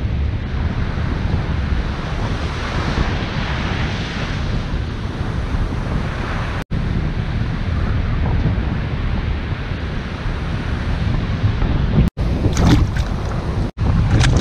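Surf breaking on a beach, with wind buffeting the microphone. A few sharp crackling clicks come about twelve seconds in.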